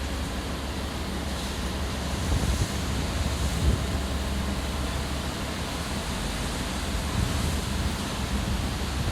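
Wind blowing across the microphone over the wash of the sea, a steady low rumble with a few brief louder gusts.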